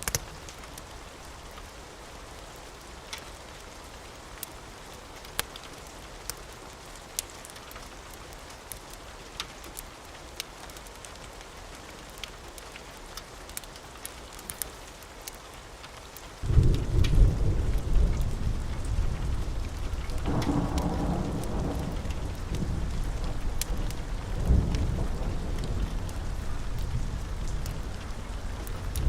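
Steady rain with scattered sharp clicks. About halfway through, a loud, deep roll of thunder breaks in suddenly and rumbles on, swelling again twice, to the end.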